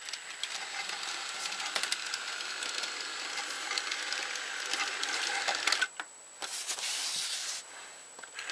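Battery-powered NewRay RailRoadN toy N gauge train running on plastic track: a small electric motor whirring with rapid clicking from the wheels over the track. The sound drops away briefly about six seconds in and again near the end.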